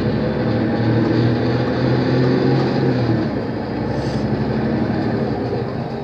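Mercedes-Benz O 530 Citaro city bus running under way, heard from inside the passenger cabin: a steady engine and road drone whose low humming note drops away about three seconds in.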